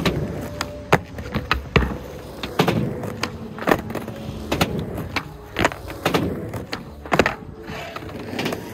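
Skateboard rolling over concrete with a steady wheel rumble, broken by a dozen or so sharp clacks and slaps of the board on the ground and the ramp as tricks are tried.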